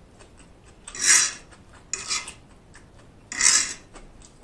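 Close-miked eating sounds from forkfuls of chow mein noodles: three short raspy noises about a second apart.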